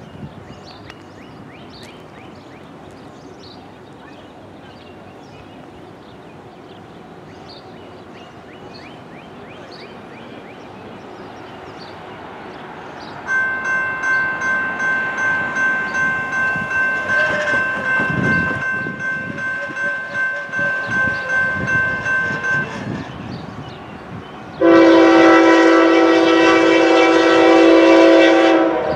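A grade-crossing warning bell starts ringing about halfway through, pulsing about one and a half strikes a second, and stops some ten seconds later. Near the end, the approaching Norfolk Southern GE ES44AC locomotive sounds one long, loud blast on its multi-chime air horn for about four seconds.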